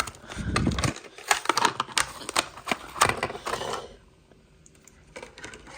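Plastic blister pack and card backing of a Hot Wheels car being opened by hand: a quick run of sharp plastic clicks and crackles for about four seconds, a short pause, then a few more clicks.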